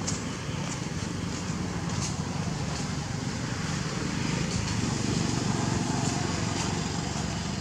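Steady outdoor background rumble, with faint scattered ticks above it.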